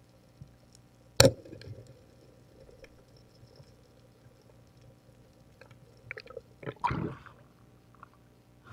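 Underwater speargun shot: one sharp crack about a second in, with a short ringing after it. Near the end come a few smaller clicks and a brief rush of water.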